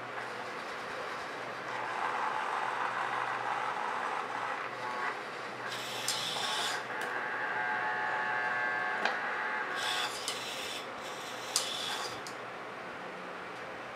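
Servo motors of a 3D-printed robotic arm whining as the arm swings and tilts, the whine shifting in pitch, over a steady low hum. A few short scraping bursts, about 6, 9 and 11 seconds in, come as it handles and tips a plastic ingredient cup over a steel saucepan.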